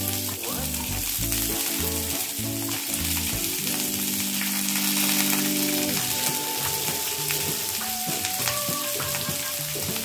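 Sliced onions sizzling as they fry in hot oil in a non-stick kadai, on a tempering of mustard seeds, urad dal and fenugreek. Background music with held chords plays underneath.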